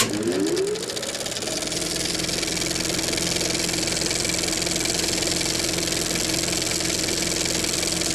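Milwaukee portable bandsaw (portaband) switched on: its motor spins up, rising in pitch over about the first second, then runs at a steady speed.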